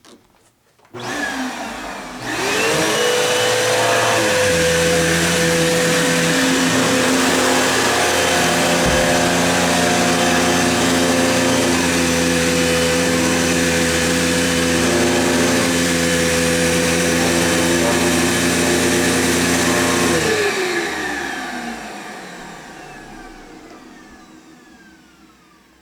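Vacuum cleaner switched on, its motor spinning up to a steady whine that runs for about eighteen seconds. It is then switched off, and the motor winds down with falling pitch, fading away near the end.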